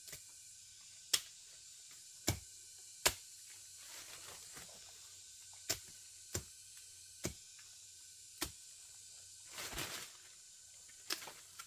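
About eight sharp single knocks, spaced unevenly about a second apart, with two brief stretches of rustling, around four seconds in and near the end.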